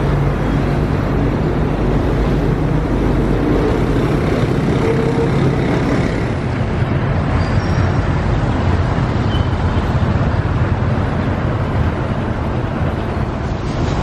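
Steady road noise of a moving car: a continuous low rumble of engine and tyres with a wash of wind and traffic.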